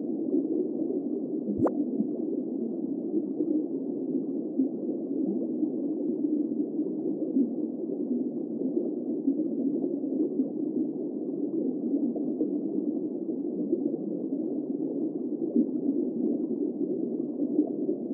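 Underwater ambience sound effect: a steady, muffled water noise with no highs and no pitched lines. One soft click about a second and a half in.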